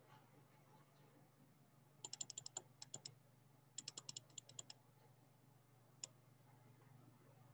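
Typing on a computer keyboard: two short runs of quick keystrokes, then a single key click, over a faint steady low hum.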